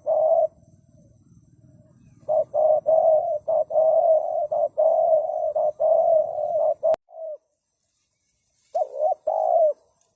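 Spotted dove cooing: a single coo, then after a pause a quick run of low coos, and two more coos near the end. A single sharp click comes about seven seconds in.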